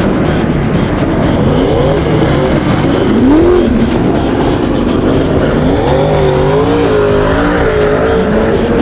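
Super Sedan race car engines revving up and down as the cars pass, their pitch rising and falling, over background music.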